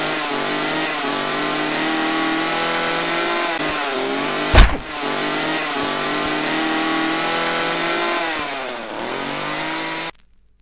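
Two-stroke chainsaw engine running hard, its pitch sagging and recovering twice, with a single sharp crack about halfway through; it cuts off suddenly near the end.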